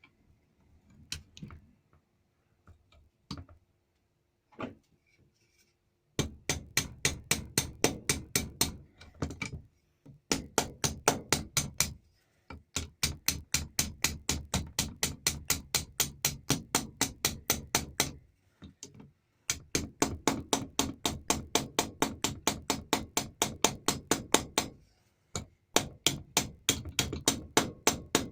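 Hammer tapping a rivet end over, in rapid runs of light, even strikes about five a second, with short pauses between runs. The rivet fixes the foot plate of a vintage Dunlop foot pump, its domed head held on a dolly. A few single taps come first.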